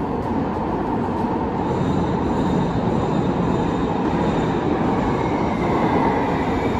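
Light-rail trolley approaching through a tunnel into an underground concrete station, a steady rumble of wheels on rail that grows slowly louder and echoes off the walls. A faint high squeal rises over it from about a second and a half in.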